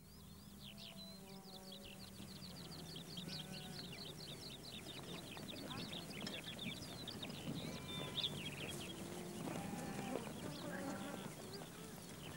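Faint open-air sound of a herding camp: livestock bleating now and then, with murmuring voices and a fast run of high chirps over the first few seconds.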